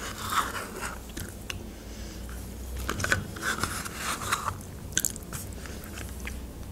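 Close-miked mouth sounds of eating a thick, airy strawberry curd yogurt off a spoon: wet lip smacks, tongue clicks and chewing, with many short clicks scattered through.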